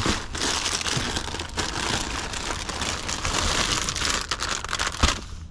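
Plastic candy packaging crinkling and rustling continuously as it is handled and rummaged through, with a single knock about five seconds in.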